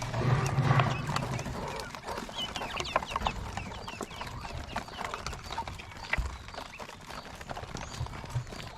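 Farmed quail chirping and calling in short, scattered notes, with many small clicks and taps mixed in, and a low rumble in the first second.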